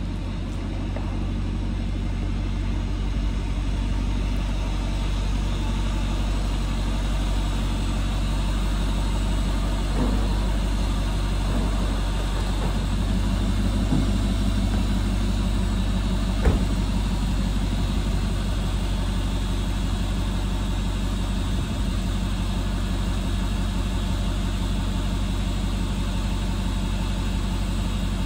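An engine idling steadily, with a few short knocks in the middle.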